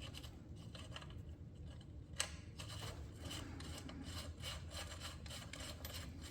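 Socket ratchet clicking in quick, uneven strokes as a nut is run onto a rear wheel bolt, with one sharper metal click about two seconds in.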